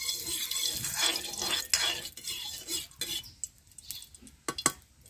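A metal utensil scraping and clinking against a metal kadai and other cookware, irregularly, with two sharp clinks about four and a half seconds in.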